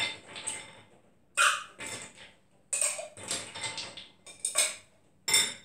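Ice cubes being scooped and dropped into a metal cocktail shaker, clattering in a series of short separate rattles.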